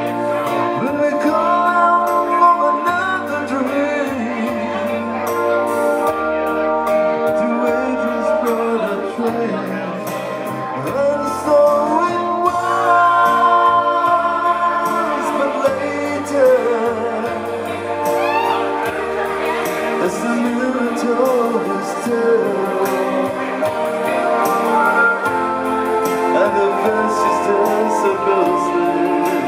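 A man singing a slow song into a microphone, live, over electronic keyboard accompaniment with sustained chords and a moving bass line.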